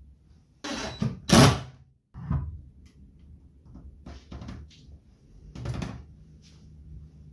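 Workbench handling noises: a series of knocks, clunks and short scrapes as parts and a circular saw are set down and adjusted on a wooden bench and MDF board. The loudest clunks come about a second in, with lighter knocks later on.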